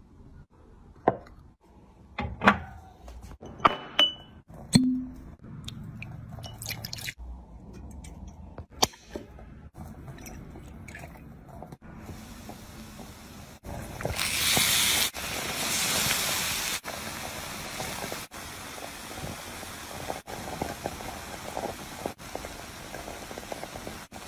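A few sharp knocks and clicks as ingredients are set into a pot by hand, then a steady hiss of the covered rice pot cooking over heat, with a louder rush of hiss for a couple of seconds around the middle.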